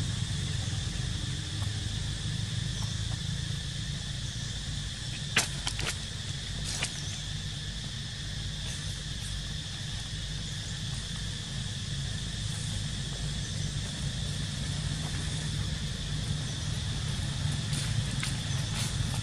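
Outdoor ambience: a steady high insect drone over a constant low rumble, with a few sharp clicks about five to seven seconds in.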